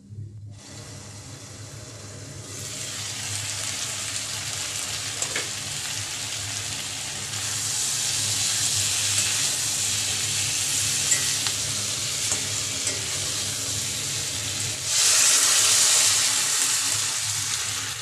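Vegetables sizzling as they fry in oil in an aluminium kadai, stirred with a spatula. About 15 seconds in the sizzle turns suddenly louder and brighter as water hits the hot pan.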